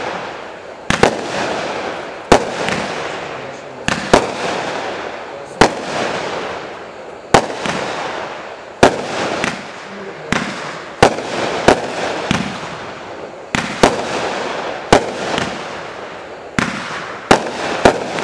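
Furor Blaster FC2020 fireworks cake (20 shots, 20 mm calibre) firing its shots one after another. Each shot is a sharp bang, coming about every one to one and a half seconds and sometimes two close together, and each bang is followed by a fading noisy tail.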